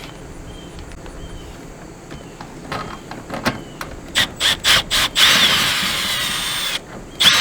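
Cordless drill-driver run in short trigger pulses, then for about a second and a half with a whine in it, then once more briefly near the end. It is backing screws out of a sheet-metal RV furnace cover.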